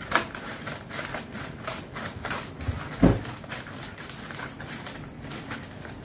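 A parcel's packaging being handled and opened by hand: a run of small clicks and crinkles, with a knock just after the start and a heavier thump about three seconds in.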